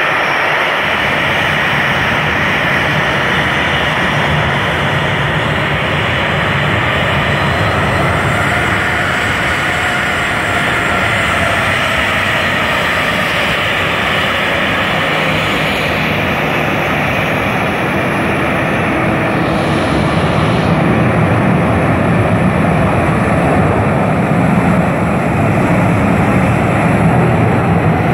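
Twin CFM56-7 turbofan engines of a Boeing 737-700 business jet running at taxi power: a steady, loud jet rush and hiss. A faint whine rises and falls in pitch near the middle as the jet turns, and the sound grows a little louder about two-thirds through.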